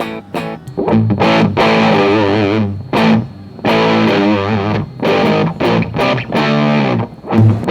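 Electric guitar played through an EarthQuaker Devices Acapulco Gold distortion pedal. Heavily distorted chords are struck and left to ring, and two held notes waver in pitch.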